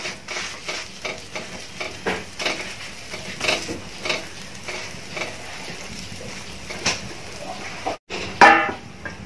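Porottas sizzling in oil on a flat iron griddle, with a metal spatula scraping and tapping against the pan as the breads are turned so they cook evenly. The sound cuts out briefly about eight seconds in, and a louder scrape follows.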